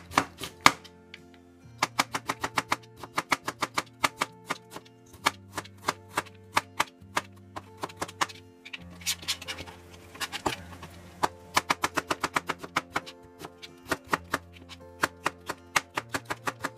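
Kitchen knife cutting a daikon radish into thin julienne strips on a cutting board: quick, even knocks of the blade on the board, about four to five a second, with short breaks. Background music plays underneath.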